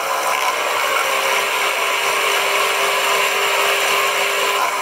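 Pillar drill running with a 3 mm tapping drill cutting into a metal locomotive cylinder block. The motor whine and cutting noise are loud and steady.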